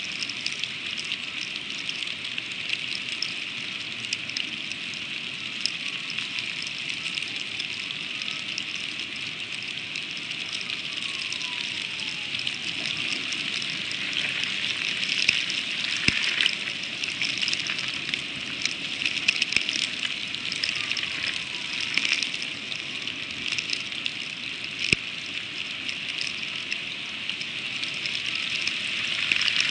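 Freezing rain pattering steadily on a bald eagle nest: a dense, even hiss full of tiny ticks. Two sharper clicks stand out in the second half.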